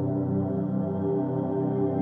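Background music: a slow ambient track of sustained, held tones.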